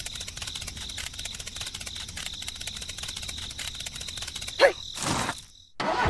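Insects trilling: a steady, high-pitched, rapidly pulsing trill. A short squeak about four and a half seconds in, then a brief rush of noise just before it breaks off.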